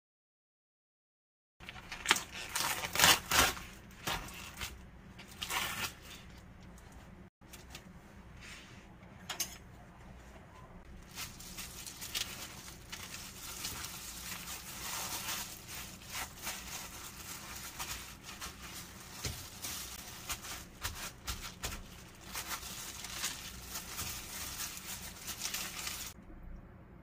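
Paper towels and thin plastic gloves rustling and crinkling as raw pork strips are pressed dry by hand, with a few loud crackles in the first seconds and steady rustling through most of the rest.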